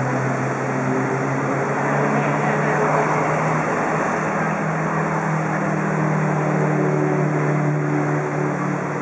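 Street traffic: a motor vehicle engine running with a steady hum that rises slightly in pitch a few seconds in, over the general noise of traffic.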